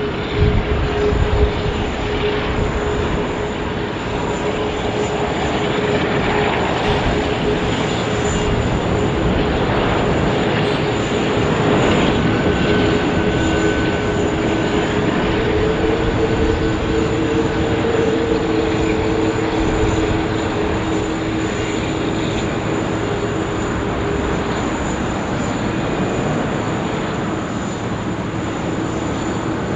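Landing Malaysia Airlines Airbus A380's four Rolls-Royce Trent 900 jet engines: a steady, loud rush with a droning tone, swelling to its loudest about twelve seconds in as a second, lower tone joins.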